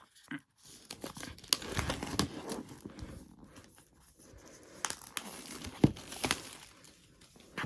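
Cardboard and paper packaging rustling and crinkling as it is handled and pulled open, with several sharp clicks and taps.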